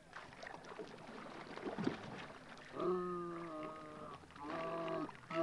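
Water sloshing and splashing around a jigger pole worked beside a small boat. About three seconds in comes a low, steady, hum-like voice tone, held for over a second and then sounded again briefly near the end.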